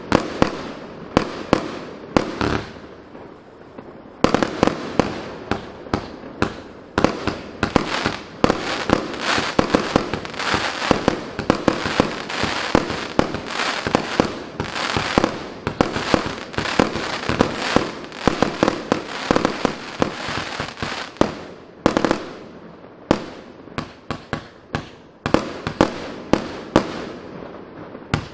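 Pangu Fireworks 'Mad Max' 144-shot, 25 mm consumer firework cake firing in rapid succession: several launch bangs a second, with crackling star bursts between them. The firing thins briefly about 22 seconds in, then picks up again.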